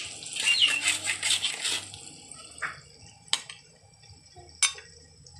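Metal spatula scraping and stirring fried anchovies in a wok for about two seconds. Then a few sharp clinks as the spatula knocks the anchovies onto a ceramic plate.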